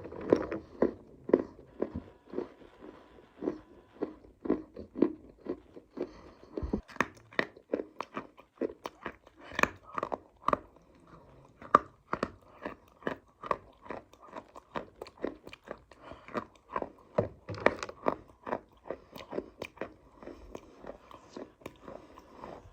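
Close-up biting and chewing of crunchy dry clay (mitti): a steady run of sharp crunches, two or three a second.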